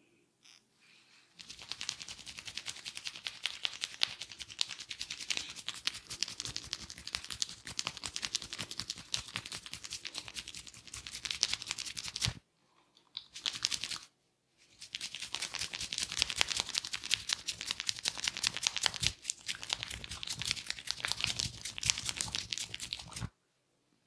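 Hair and scalp being worked fast by a barber's hands during an Indian head massage, giving a dense crackling and rustling close to the microphone. It comes in two long spells with a short burst and a brief pause near the middle.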